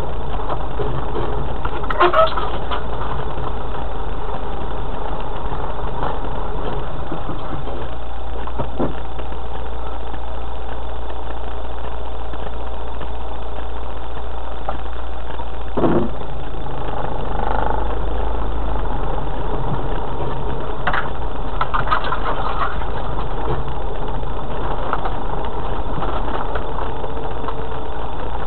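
Off-road vehicle's engine running at low speed, heard from inside the cab as a steady low drone, with occasional knocks and rattles as it rolls over the rough, rutted lane.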